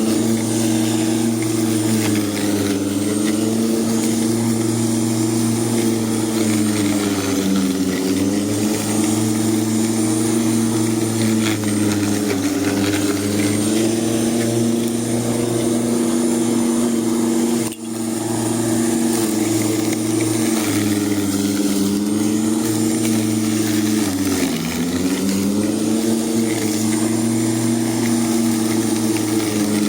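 Ozito lawn mower running steadily while cutting long, wet grass, its motor pitch sagging twice under load and briefly cutting out a little past halfway.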